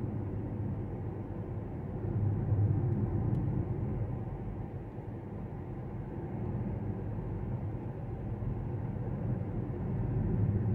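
In-cabin road and tyre noise of a VW ID.3 electric car driving: a steady low rumble that swells about two seconds in.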